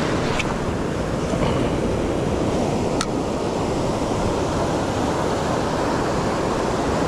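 Ocean surf washing and breaking through the shallows, a steady rushing noise with wind buffeting the microphone. A couple of brief ticks stand out, about half a second in and near the middle.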